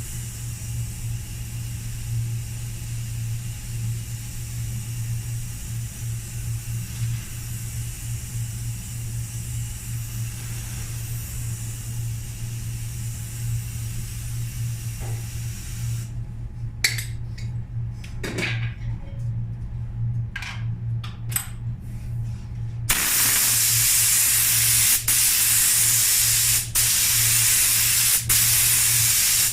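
Paint spray gun spraying: a loud, steady hiss of air and paint that starts suddenly about three quarters of the way in. Before it, a steady low hum with faint hiss, then a quieter spell with a few short clicks.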